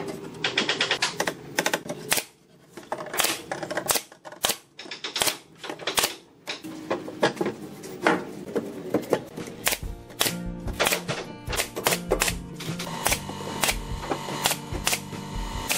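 JOK pneumatic brad nailer firing nails into wooden formwork boards: a run of sharp, irregular clicks. Background music comes in about two-thirds of the way through.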